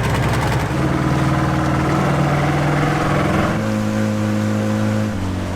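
Motor of a small ferry boat running under way. Its steady note shifts pitch a few times as the throttle changes.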